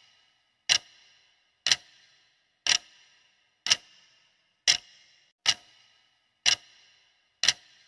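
Clock ticking sound effect counting down a quiz timer: eight sharp ticks, about one a second, each with a brief ring.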